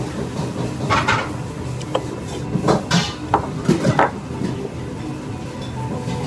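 Eating ramen from a bowl with chopsticks: a run of short noisy sounds and small clinks of tableware about one to four seconds in.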